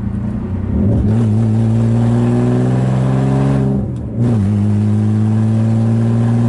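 BMW E36 straight-six engine revved up and held at steady revs, dipping briefly about four seconds in before coming straight back up and holding again.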